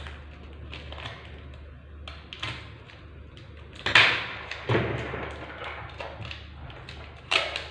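Tools being set down on a wooden tabletop: a few sharp knocks, the loudest about four seconds in as a roll of packing tape and a wire stripper are put down, with another shortly after and one near the end, over a steady low hum.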